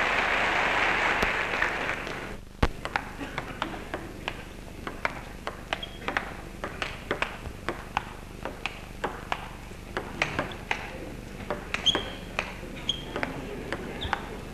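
Applause that cuts off abruptly about two seconds in. It is followed by a table tennis rally: the celluloid ball clicks sharply off bats and table, about two or three times a second.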